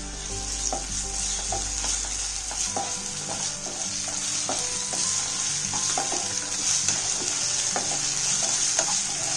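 Shallots, green chillies and ginger-garlic paste sizzling in oil in a non-stick frying pan, a steady hiss, while a wooden spatula stirs them, scraping and knocking against the pan about once or twice a second. The paste is being fried off with the onions.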